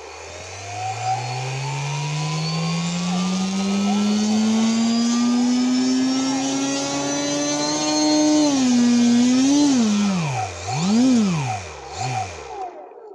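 Skyshark Lightning 25 brushless motor spinning an EP 1170 propeller, its whine climbing steadily in pitch for about eight seconds as the throttle is slowly opened. It then drops back, wavers, gets two quick throttle blips up and down, and winds down to a stop near the end.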